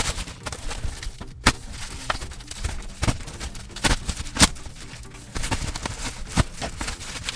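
Plastic packaging and bubble wrap being handled and pulled apart, crinkling with irregular sharp clicks and crackles.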